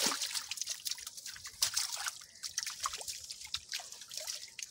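Pond water dripping and splashing in small, irregular drips and splashes as fish and shrimp are handled in a net held in the water.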